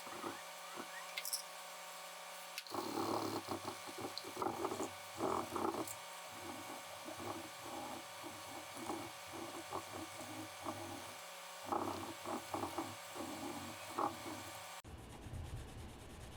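Hand scrubbing of an engine block's top deck in repeated rubbing strokes, cleaning off caked-on oil and grime. The strokes pause briefly near the middle and stop abruptly near the end.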